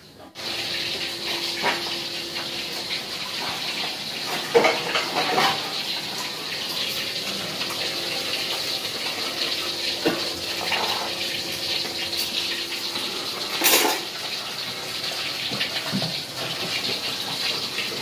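Water running steadily from a kitchen tap, with a few sharp clinks of dishes now and then, the loudest near the middle.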